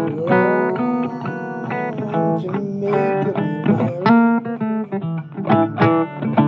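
Blues music: an instrumental break with a guitar playing plucked single-note lines, some notes bent upward in pitch.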